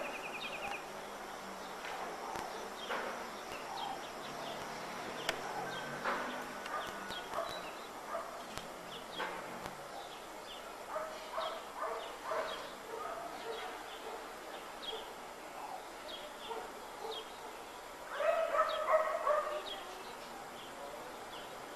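Scattered short animal calls over a steady outdoor hiss, with a louder run of calls near the end.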